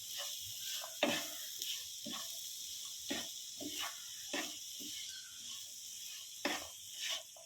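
Onion and spice filling frying in a pan, stirred with short scraping strokes about once a second over a steady sizzle.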